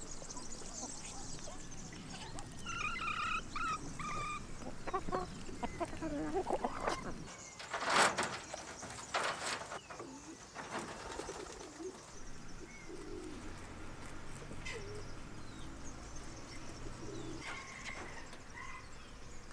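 Chickens and Muscovy ducks feeding and calling softly, with a run of short clucking notes a few seconds in. Two brief bursts of noise stand out near the middle.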